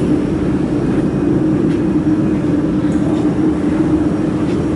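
Powered-up laser welding machine running idle: a steady hum with fan-like noise, with a few faint clicks.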